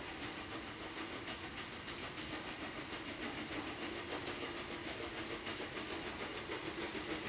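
Legged robot dog's joint motors whirring steadily as it walks, with a steady hum and a fast, even pulsing.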